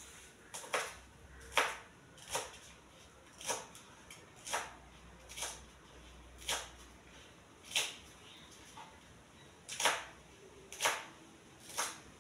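Kitchen knife chopping green vegetable stalks on a plastic cutting board: a series of about eleven separate sharp knocks, roughly one a second, with a longer pause partway through.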